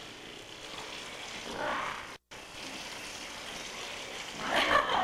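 Steady hiss of a home camcorder recording, with brief indistinct voices. The sound drops out for an instant a little after two seconds in, where the recording cuts, and a louder voice comes in near the end.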